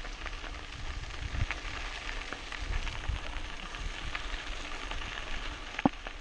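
Mountain bike tyres rolling over a loose gravel track, a steady crunch full of small ticks from stones, with one sharp click near the end.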